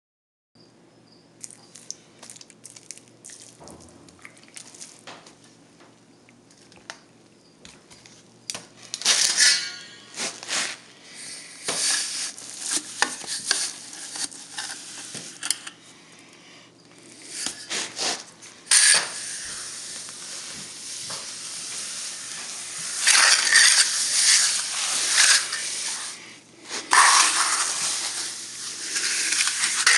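A brush scrubbing wet cement slip into drying cracks on a cement surface, with clinks against a metal pail. There are scattered light clicks at first. From about a third of the way in come loud rasping strokes, and these turn into almost continuous scrubbing in the second half.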